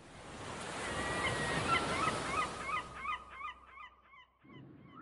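Birds honking in a rapid series of short calls, about three a second, over a rush of surf that swells up and fades out about three and a half seconds in; the calls carry on a little longer.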